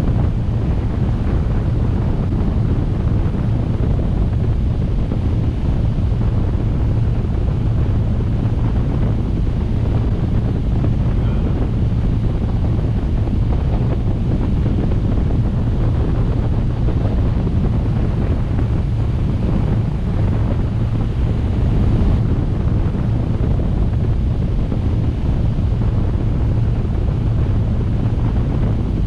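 Steady wind buffeting the microphone and water rushing along the hull of a 1998 Sea Ray 330 Sundancer cruising under way, over a low steady drone.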